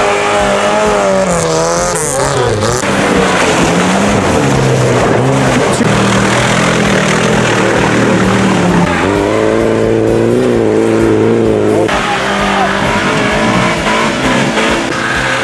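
Off-road 4x4's engine running hard, its revs rising and falling as it works through rough ground.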